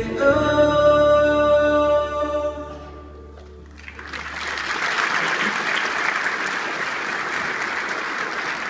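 A choir with instrumental backing holds a final sung chord that dies away about two and a half seconds in. About a second later the audience breaks into steady applause that carries on.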